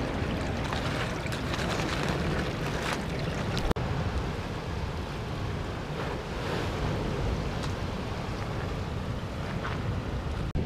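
Water spilling over a small step and running between pebbles, then after a sudden cut about four seconds in, waves washing on the shore with wind buffeting the microphone.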